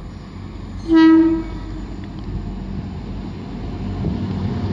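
Arriving Arriva Trains Wales Class 175 diesel multiple unit sounds its horn once, a short single-note blast about a second in. Its engine and wheel noise then grow steadily louder as it runs in alongside the platform.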